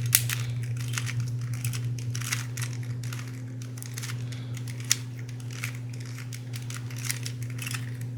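Irregular plastic clicks and clacks of a stiff, stickered Rubik's brand cube being turned layer by layer through an algorithm, over a steady low hum.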